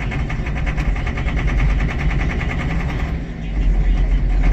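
John Deere 7420's six-cylinder diesel running at low idle with a rapid, regular clatter, then revving up a little about three and a half seconds in. The owner says testing has shown the injectors are at fault.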